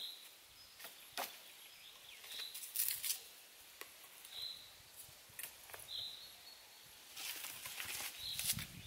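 Dry sticks and brush cracking and snapping in scattered clusters as dead branches are broken and pulled from a pile of deadfall, busiest near the end. Through it a bird repeats a short high chirp about every two seconds.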